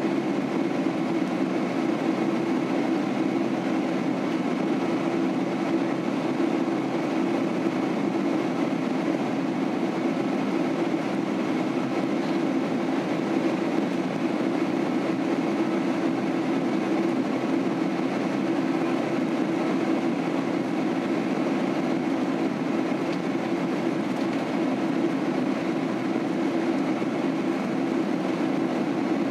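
Steady cabin noise of a Boeing 767-300 airliner in flight, heard inside the cabin: engine and airflow rumble, strongest in a low hum, with no change in level.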